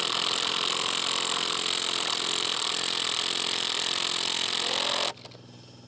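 Cordless impact driver hammering a hex-head stainless Titen concrete screw anchor through a wooden ledger into pre-drilled concrete, running it down until snug; it runs steadily and stops abruptly about five seconds in.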